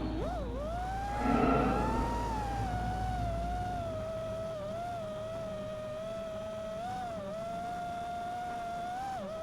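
A 5-inch FPV quadcopter's brushless motors and propellers whining at a steady pitch that dips and recovers briefly with throttle changes, after a louder surge about a second in.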